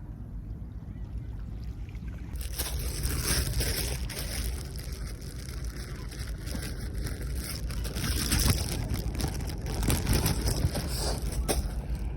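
Sea water washing and sloshing, with wind rumbling on the microphone. About two seconds in, a loud hissing wash full of crackles sets in and keeps going.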